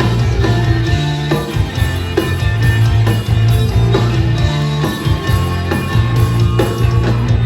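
Rock band playing live in an instrumental passage with no vocals: electric guitar, heavy bass and a drum kit keeping a steady beat.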